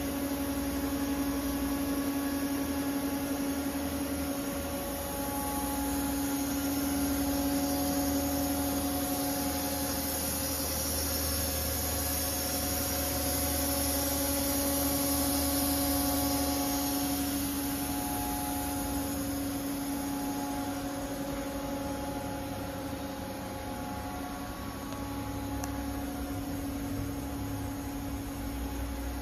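Steady machine hum from a Haas VF-6/40 CNC vertical machining center standing idle but powered up, with a few held tones and a high hiss. No cutting or axis moves are heard.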